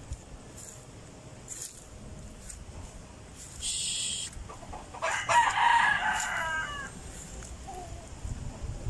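A rooster crowing once, a call of about two seconds starting about five seconds in, after a brief high-pitched sound a little earlier.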